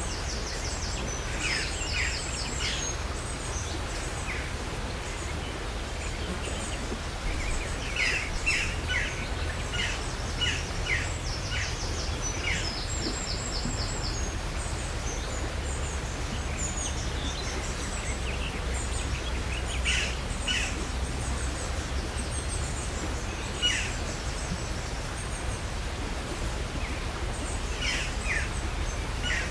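Countryside ambience: small birds chirping and trilling on and off, over a steady low rumble.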